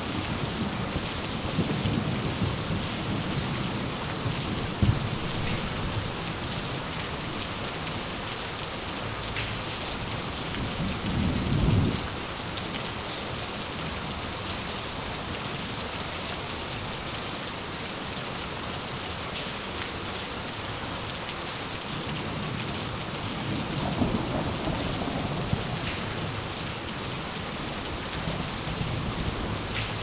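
Steady heavy rain with low rolls of thunder. One roll builds to a peak about twelve seconds in and stops abruptly, and another rumbles later on.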